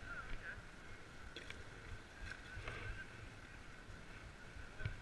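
Faint sounds of broomball play on an outdoor ice rink: a few light knocks and scrapes of brooms and shoes on the ice, over a low rumble.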